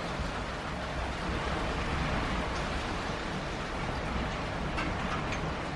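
Steady rainfall, an even hiss, with a few faint drip ticks near the end.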